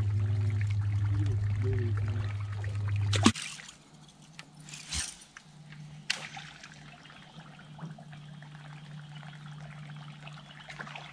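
Electric trolling motor of a bass boat humming steadily, with water trickling. A sharp knock about three seconds in cuts the loud hum off. A quieter, slightly higher hum follows, with a few light knocks.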